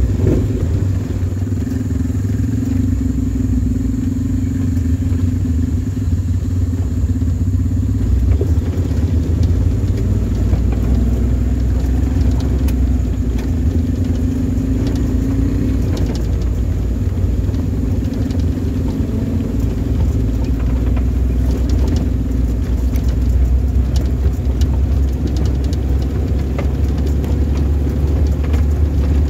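An off-road 4x4's engine running steadily at low speed on a rutted dirt track, with a deep rumble. Scattered knocks and rattles come from the vehicle jolting over bumps, more of them in the second half.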